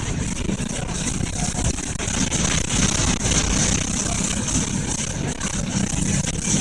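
Steady running noise of a vehicle on the road: a low engine and tyre rumble with a hiss of wind over it.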